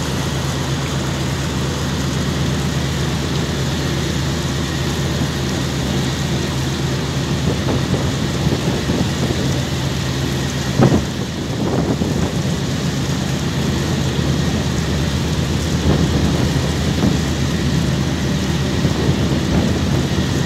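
Steady rushing noise with a low hum underneath, broken once by a sharp knock about eleven seconds in.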